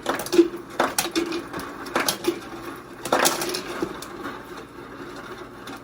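Blue crab shells being cracked and snapped apart by hand close to the microphone: a run of sharp irregular cracks, loudest just after the start and again about three seconds in.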